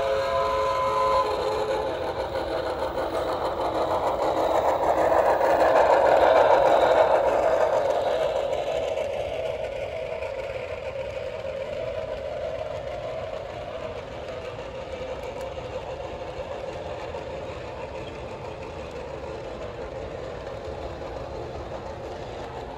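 HO scale model train rolling past on its track, its wheels and cars making a steady rolling noise that builds to a peak around six or seven seconds in and then slowly fades as the train moves on. A held chord-like train horn note cuts off about a second in.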